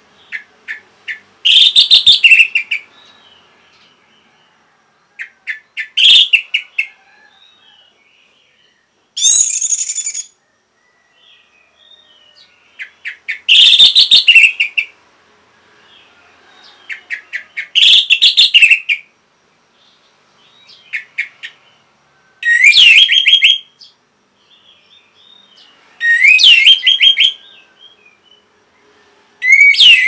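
Orange-headed thrush singing: short phrases that start with a few quick notes and build into a loud, rich warble, repeated about every four seconds. The last few phrases open with a rising whistle.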